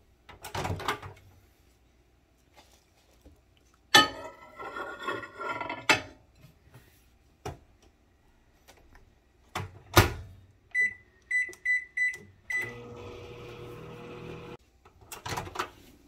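LG microwave oven being loaded and started: a plate clatters onto the glass turntable, the door shuts with a sharp click about ten seconds in, and five quick keypad beeps follow. The oven then runs with a steady hum for about two seconds before cutting off, and near the end the door is opened again with a click.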